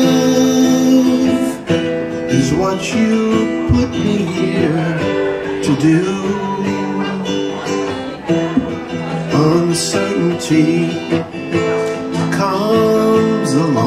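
Acoustic guitar strummed steadily in a live solo performance, with a held, wavering melody line carried over the chords.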